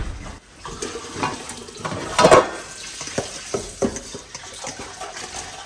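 Cooking pot and utensils knocking and scraping at the stove, with one louder clatter about two seconds in, over a steady hiss from a pot cooking on the burner.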